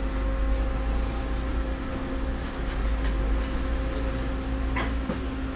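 Interior running noise of a Vityaz-M (71-931M) low-floor tram in motion: a steady low rumble with a steady hum over it, and a single click about five seconds in.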